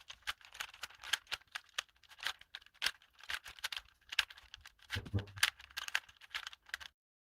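Rubik's Cube being turned by hand: quick, irregular plastic clicks and rattles as the layers are twisted. The clicks stop sharply near the end.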